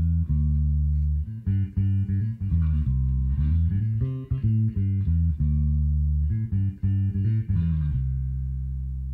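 Electric bass (a Sadowsky) played through a Little Walter tube bass amplifier: a run of plucked low notes, ending on one low note left to ring and slowly fade from about eight seconds in.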